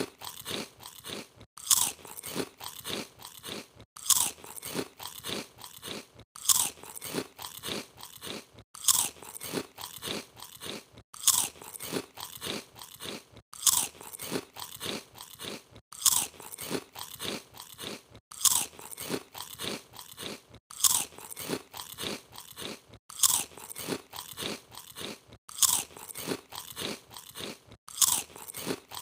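Crisp potato chips being bitten and chewed close to the microphone: a sharp loud crunch followed by several softer chewing crunches, repeating about every two and a half seconds.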